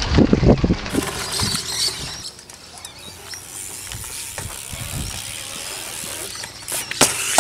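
BMX bike freewheel hub ticking and tyres rolling on concrete ramps, with loud knocks in the first second and again near the end.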